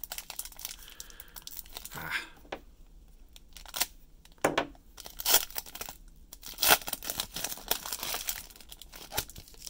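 Foil wrapper of a Panini Prizm baseball card pack being torn open and crinkled, in a string of irregular sharp rips and crackles, loudest in the middle.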